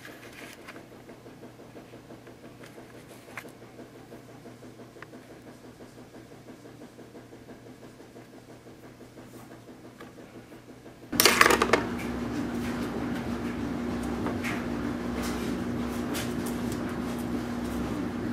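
Faint handling clicks, then about eleven seconds in a loud clatter and a steady mechanical hum with a low tone that keeps going.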